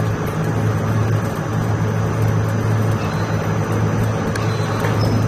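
ALCK6160X1500 CNC lathe running, a steady low machine hum from its spindle drive as the carriage with the four-way tool post traverses.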